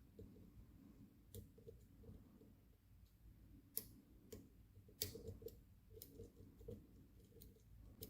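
Faint, scattered ticks and clicks of a dimple flag pick working the pins of a cheap dimple lock held under tension, about half a dozen small clicks, the sharpest about four and five seconds in.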